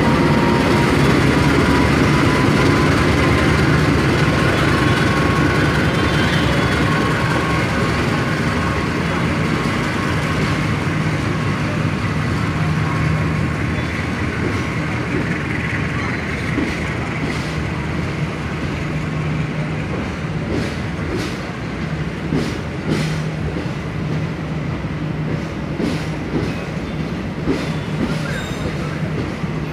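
A CC206 diesel-electric locomotive hauling a long-distance passenger train moves along the platform. Its engine drone and a steady high whine fade as the locomotive moves away. The stainless-steel coaches then roll past, their wheels clacking over rail joints about once a second.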